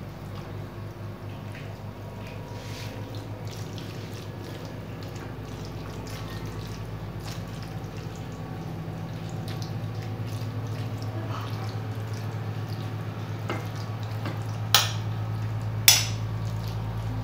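Metal spoon spreading wet onion-and-tomato chakchouka over raw dough on a baking tray, with soft squishing and scraping, and two sharp clinks of the spoon near the end. A steady low hum runs underneath.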